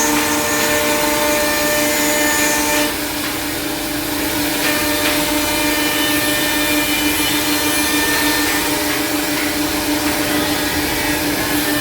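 Four-head CNC mortising machine running, its spindle motors giving a steady whine made of several held tones. About three seconds in, some of the tones drop out and the sound gets slightly quieter.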